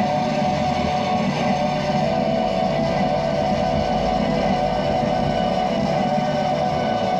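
Live experimental noise music from handmade electronic instruments and effects pedals: a dense, unchanging drone with a held mid-pitched tone over a wash of noise.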